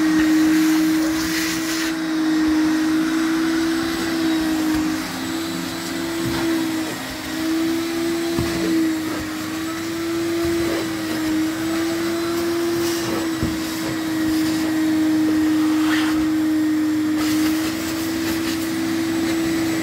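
Carpet-cleaning machines running steadily: a rotary single-disc floor machine scrubbing a foamy, shampooed rug, and a wet-dry vacuum. Together they give a constant motor hum whose pitch wavers slightly.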